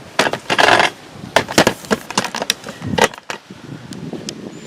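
Handling noises from work on a pickup door's rubber edge bumper: a quick run of clicks, taps and knocks, with a short scraping rush about half a second in.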